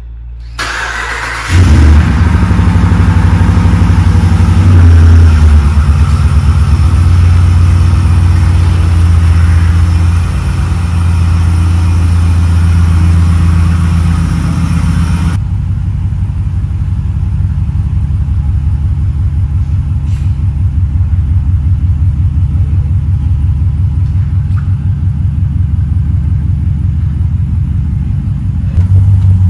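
Ram 1500 pickup's engine starting up about a second in, then idling with a deep, even rumble.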